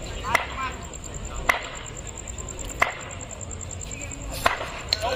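Wooden cricket bat tapped on a concrete pitch: four sharp knocks, about a second and a quarter apart, with a few brief shouts in the background.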